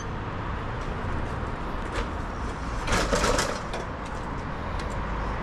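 Outdoor traffic background with a steady low rumble, and a short cluster of clicks and rattles about three seconds in.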